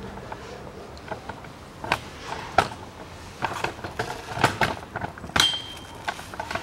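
Hand tools and metal parts clinking: a series of separate sharp clicks and knocks, with a short metallic ring a little past five seconds in.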